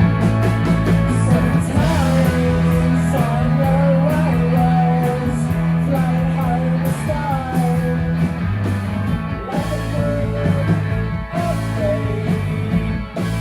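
Rock music: a sung vocal line over sustained bass and guitar chords, with the singing dropping out for a couple of seconds in the middle.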